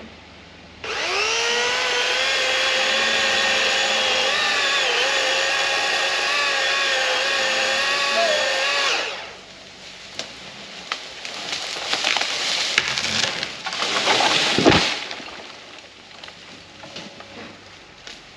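Master Force 80-volt cordless electric chainsaw spinning up with a rising whine and cutting steadily for about eight seconds, its pitch dipping briefly under load, then stopping. Wood then cracks and splinters as the tree gives way, ending in a heavy thud as it falls.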